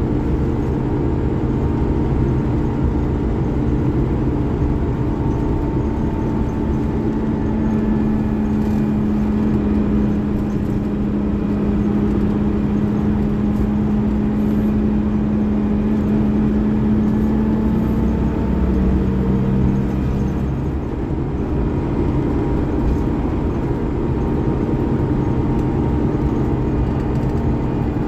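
Scania DC13 13-litre six-cylinder diesel engine of a Scania K360IB bus running steadily with a loud drone. A strong whine rises out of the drone, holds steady for about twelve seconds, steps down slightly and fades out about twenty seconds in, with a brief dip in loudness.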